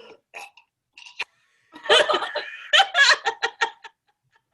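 Women laughing in a run of short, loud bursts about two seconds in, after a few faint breathy clicks.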